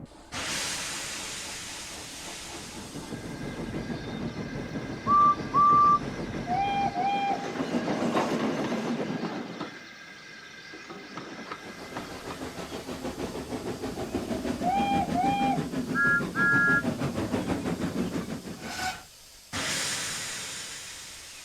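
Steam locomotives chuffing and blowing off steam. Short double toots on whistles of several different pitches sound twice in the middle, and a loud burst of hissing steam comes at the start and again near the end.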